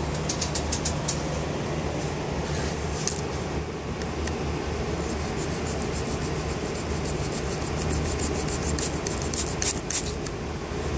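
Snap-off utility knife working on a Marinite calcium-silicate insulation board: a quick run of clicks at the start, then fast, evenly spaced scraping clicks as the blade cuts into the board, with a few louder scrapes near the end. Under it all, a steady low rumble and hum.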